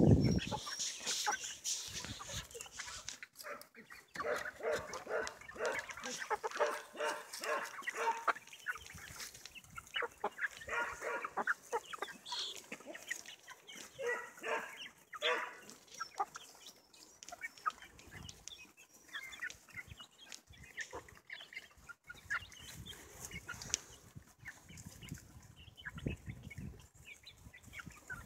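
A flock of chickens clucking at close range, in runs of short repeated calls that are busiest in the first half and thin out towards the end.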